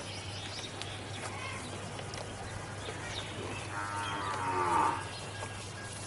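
A single moo from one of the penned cattle, lasting about a second and a half about three and a half seconds in and growing louder toward its end, over a steady low hum.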